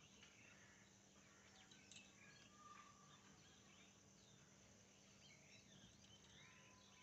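Near silence: faint outdoor ambience with a low steady hum and scattered faint bird chirps.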